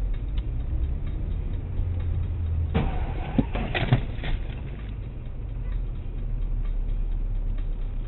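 Vehicle with a steady low engine and road rumble. About three seconds in comes a clatter of bangs and knocks lasting just over a second, as in a collision.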